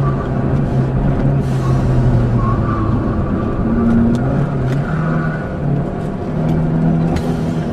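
Car engine running hard, heard from inside the cabin, its note holding and then shifting in pitch several times as the car is driven.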